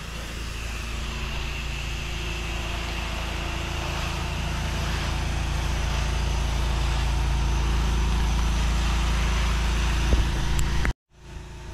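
An 8 gpm pressure washer running steadily, its engine hum under the hiss of the water spray as house wash mix is sprayed onto siding. The sound breaks off abruptly for a moment near the end.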